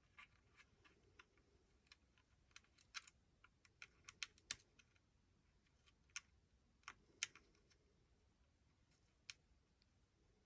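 Faint, irregular light clicks and ticks of a hex key and a small steel set screw being worked into an AR-15 lower receiver, bunched together a few seconds in.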